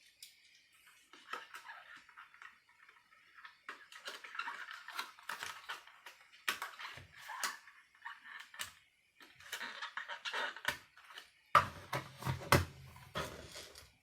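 Small plastic clicks, taps and rustling as the body shell of a Wltoys K989 mini RC car is handled and fitted back onto its chassis, with a few louder knocks near the end.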